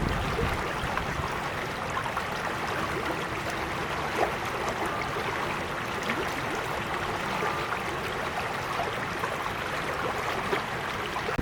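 Small creek flowing steadily over stones, a continuous babbling and trickling with little splashes.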